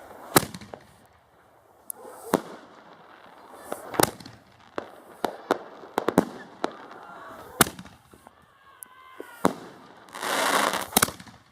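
Chinese factory-made consumer fireworks going off: about eight sharp bangs, one every second or two, each followed by a short echo. Near the end comes a dense hissing, crackling burst.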